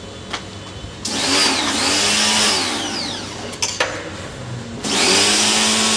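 Portable electric jet pump (pressure washer) starting up for the wet wash of a split AC's outdoor unit: the motor spins up with a rising whine under a loud hiss of spray. It stops near four seconds, then starts again about a second later and settles into a steady hum and hiss.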